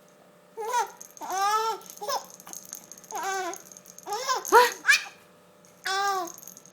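Four-month-old baby laughing in short, high-pitched bursts, about eight of them with gaps between, broken up by hiccups.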